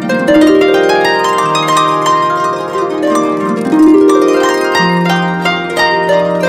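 Background instrumental music with overlapping held notes and a few gliding pitches.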